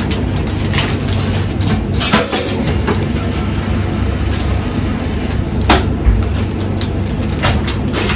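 A steady low hum of kitchen machinery, with plastic bags rustling and a few sharp clicks and knocks as the bags are handled.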